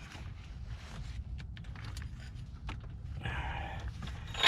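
A hand ratchet tightening a new oxygen sensor into the exhaust: a few scattered clicks and a brief rasp near the end, over a low steady rumble.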